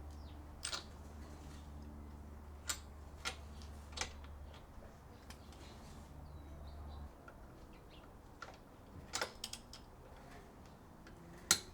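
Click-type torque wrench on wheel lug nuts: a handful of sharp, scattered clicks, the loudest near the end, as the wrench is worked at its 50 foot-pound setting. A low steady hum underneath stops about seven seconds in.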